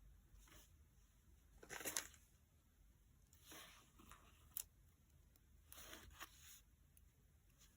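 Faint rustling and peeling of paper and stickers being handled for diary decorating: a few short scratchy rustles, the loudest about two seconds in, and a single sharp click a little past the middle.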